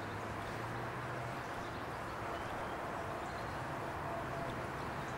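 Steady outdoor ambience: an even hiss with a few faint bird chirps.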